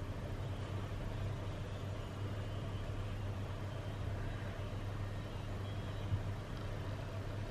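Steady low hum over a faint even hiss: background room tone, with no distinct sound events.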